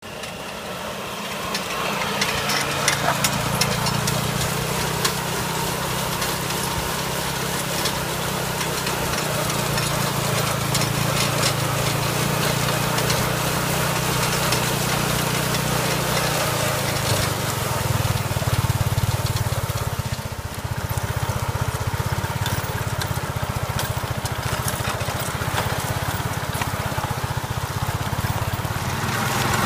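Engine of an agricultural motor tricycle running steadily as it drives, with coffee cherries crackling and crunching under the tyre and scraper.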